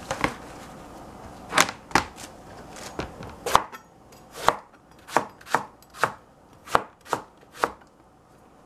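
Chef's knife cutting through a long, thin purple eggplant on a plastic cutting board: about a dozen separate chops, each a sharp knock as the blade meets the board, coming about two a second in the second half.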